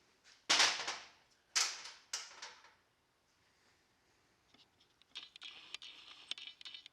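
Handling noise from hinge parts being worked by hand: three rough rustling or scraping bursts, then from about five seconds in a run of light clicks and scratching, typical of small metal bushings and pins being handled and tried in the hinge.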